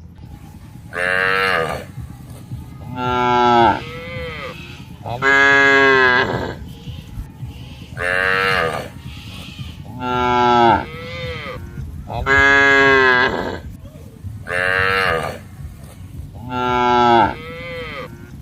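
A cow mooing over and over: about eight loud calls of roughly a second each, coming about every two seconds, some trailing off downward in pitch at the end.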